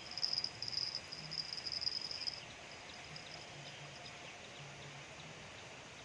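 An insect trilling, a high pulsing trill that stops a little over two seconds in, leaving quiet outdoor background with a few faint chirps.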